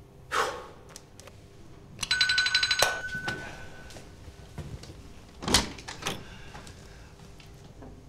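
An apartment doorbell rings once for about a second with a buzzing electronic tone. A few seconds later the door lock clunks and clicks as the door is unlocked and opened. A brief swish sounds near the start.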